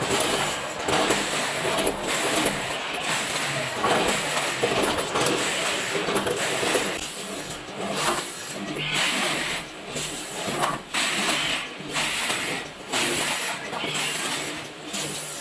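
Automatic food weighing and packing machinery running: a steady mechanical noise with hiss and irregular clattering knocks.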